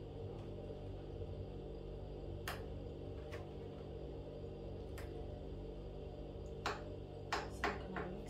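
A metal spoon scooping frozen strawberry slush from a plastic container into a wine glass, giving scattered sharp clicks and taps against the container and glass. The taps come a few seconds apart at first and quicken near the end, over a steady low hum.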